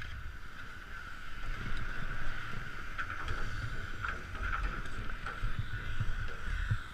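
Wind rumbling on a GoPro's microphone, over a steady high-pitched hum, with a few light clicks.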